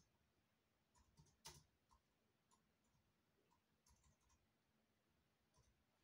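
Near silence: room tone with a few faint, scattered clicks, the clearest about one and a half seconds in.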